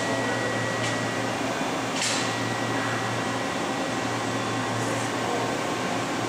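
Steady hum of a powered-up CNC vertical machining center standing idle, with a faint steady high whine and a few brief soft hisses.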